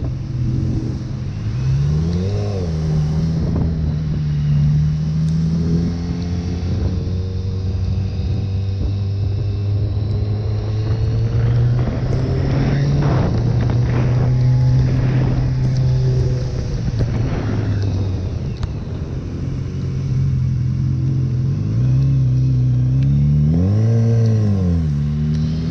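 Motorcycle engine pulling steadily while riding. Its revs rise and fall about two seconds in and again near the end, with a steady rush of wind noise.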